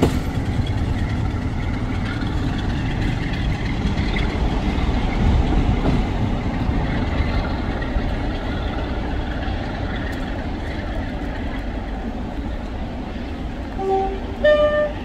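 Train hauled by Battle of Britain class steam locomotive 34067 Tangmere rumbling along the rails as it pulls away, the sound slowly fading. Near the end come two short pitched notes, the second louder.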